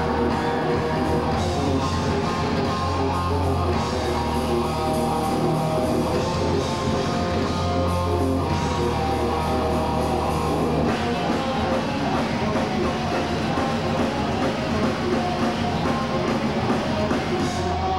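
Heavy metal band playing live: distorted electric guitar over bass guitar and drum kit, with no vocals. About eleven seconds in the sound fills out higher up as the playing changes.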